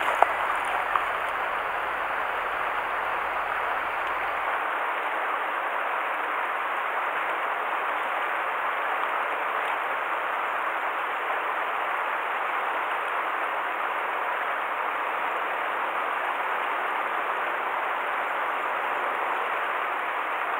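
Steady rush of a shallow, rocky mountain stream flowing over stones.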